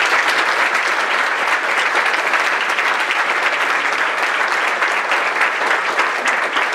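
Audience applauding: a dense, steady round of clapping from a seated crowd.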